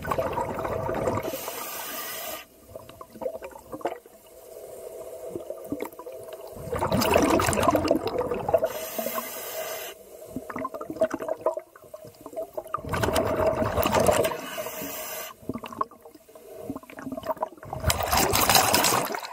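Scuba diver breathing through a regulator underwater: a short high hiss on each inhale, then a longer loud bubbling rush of exhaled air, repeating about every six seconds. A faint steady hum runs underneath.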